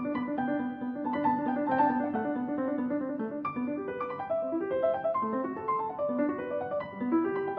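Background piano music: quick repeated notes and rising runs in a steady rhythm.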